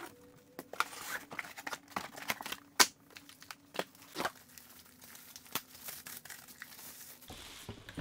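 Unboxing noises: cardboard packaging scraping and plastic wrapping crinkling and rustling as it is pulled off a robot vacuum, with scattered sharp crackles and a louder snap about three seconds in.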